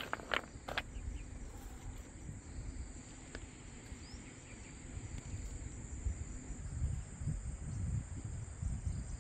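Insects buzzing at a steady high pitch, with a low gusty rumble of wind on the microphone. In the first second there are a few sharp clicks and rustles from tree branches being handled.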